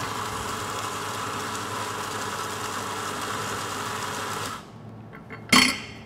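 Electric espresso grinder with conical burrs running a timed double dose into a portafilter: a steady grinding whir for about four and a half seconds that stops sharply. A short knock follows about a second later.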